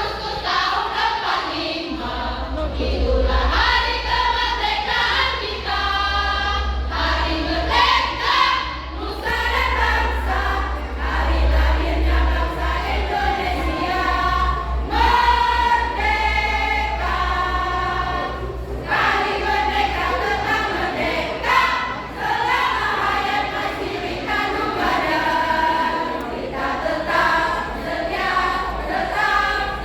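A choir singing unaccompanied, voices only with no instruments, over a steady low hum.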